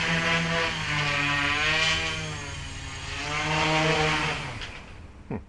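Propellers and motors of an nVader 600 bicopter whirring in a low hover, their pitch wavering up and down as the speed is constantly corrected. Near the end the sound fades and the motors wind down with a falling whine.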